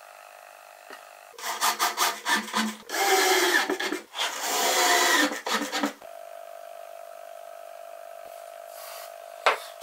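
Cordless drill boring into a pallet-wood board: a few short bursts, then two longer runs of about a second each, stopping about six seconds in. A single sharp click comes near the end.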